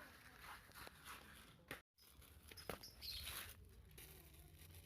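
Near silence: faint background with a few soft, short clicks and a brief total dropout partway through.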